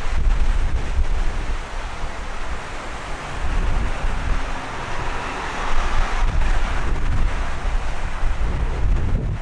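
Wind buffeting the microphone with a low, uneven rumble, over a steady rushing noise that swells in the middle.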